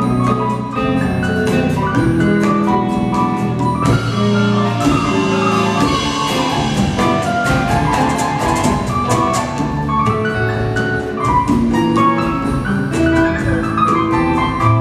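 Live ensemble music with a drum kit keeping the beat, playing at a steady, full level.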